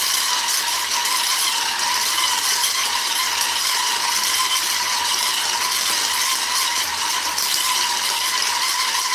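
Hand-held immersion blender running steadily at one speed while blending pumpkin pie filling in a bowl, a constant motor whine.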